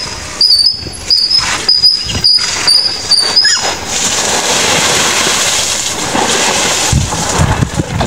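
Squeaky wheelbarrow wheel giving a short high squeak about every half second as it is pushed along, stopping about three and a half seconds in. A steady rough rushing noise follows for a few seconds, with a few low thumps near the end.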